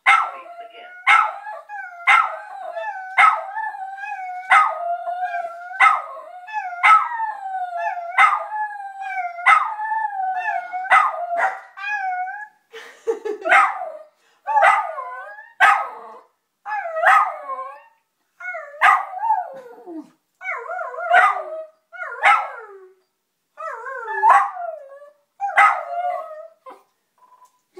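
A West Highland white terrier howling, wavering wails with sharp yelps breaking in about once a second. For the first dozen seconds the howling runs on almost unbroken; after that it comes as shorter, separate howls that fall in pitch.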